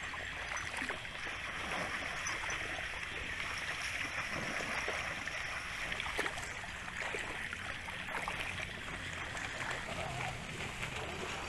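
Water splashing and dripping as a wet fishing net is pulled up and shaken in shallow muddy water, with many small drips and splashes over a steady watery hiss.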